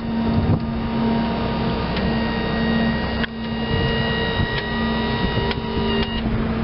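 Hustler Raptor zero-turn mower's Kohler 25 HP gas engine running steadily at a constant speed, with a steady whine over the engine note.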